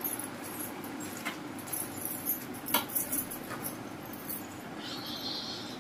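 Quiet room with a steady low hum and a few faint taps and clicks of a person getting up and walking out, with a brief faint hiss near the end.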